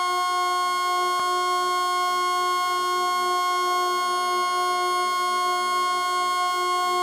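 Electromagnetic hum of a Bombardier MR-73 metro car's Jeumont-Schneider 750 V DC traction equipment, picked up by an induction coil lying on the floor. It is a steady, unchanging chord of pure tones, with one sharp click about a second in.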